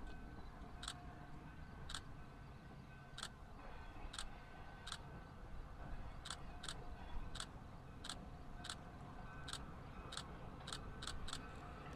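Distant freight train rolling onto a railroad bridge: a steady low rumble with sharp, irregular clicks from the wheels crossing rail joints. The clicks come closer together in the second half as more of the train reaches the bridge.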